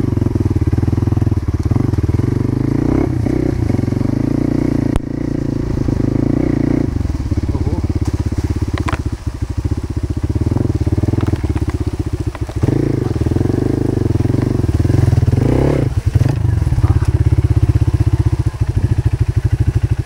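Motorcycle engine running under way with a dense, low, even exhaust beat, the beat easing and picking up again a few times.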